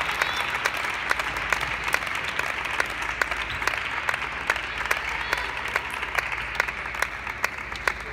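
Spectators applauding after a table tennis point, the clapping slowly dying away.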